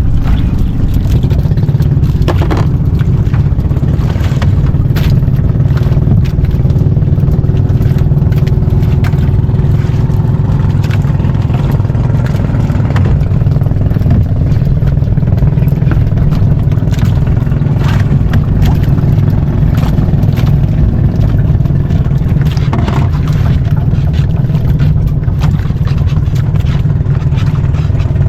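Small fishing boat's engine running steadily, with occasional clicks and knocks.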